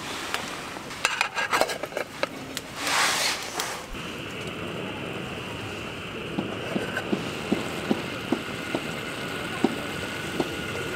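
Aluminium camp cookware knocking and clinking, then a short hiss followed by a steady hiss with light ticks about twice a second as the pots heat on the stove.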